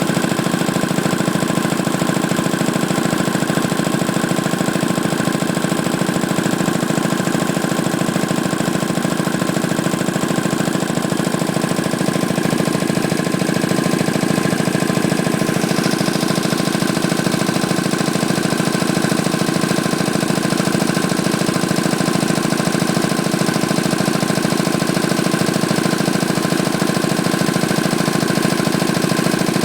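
Ingersoll-Rand T-30 two-stage reciprocating air compressor running steadily under load, pumping the tank up toward its 150 psi shut-off. About halfway through, the higher hiss in its sound shifts slightly.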